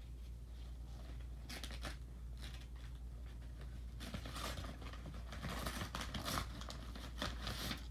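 A brown cardboard mailing package being ripped open by hand: quiet, irregular tearing and crinkling, busier in the second half.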